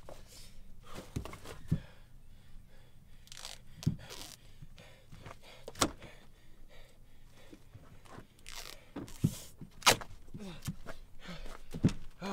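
Plastic trash bag crinkling and rustling as it is handled, with several sharp clicks about two seconds apart.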